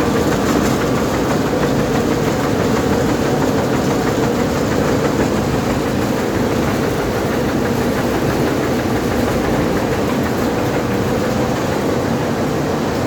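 Plastic film recycling washing line running: a steady, loud machinery drone of motors and churning equipment with a constant low hum.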